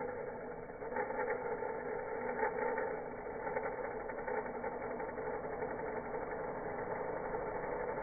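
Vacuum cleaner motor running, played back in slow motion so its whine is lowered into a steady, rough drone.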